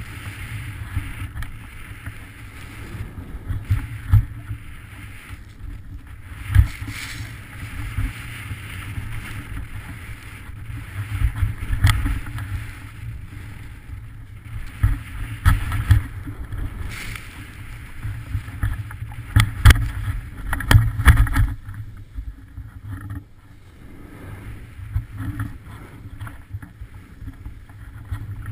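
Wind buffeting the microphone during a ski descent of a snowy couloir, over the hiss and scrape of skis on snow. Sharp knocks and scrapes come through the turns, loudest a few times in the middle stretch.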